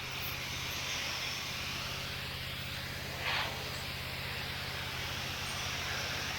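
Petrol pressure washer running: a steady engine hum under the hiss of a high-pressure water jet on paving, with a brief louder spurt of spray about three seconds in.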